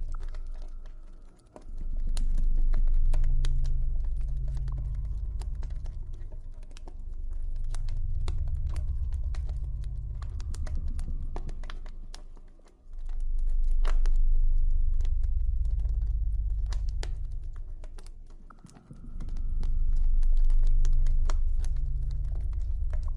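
Campfire crackling: quick, irregular pops and snaps, over a deep ambient drone that swells up and fades away in long waves several seconds apart.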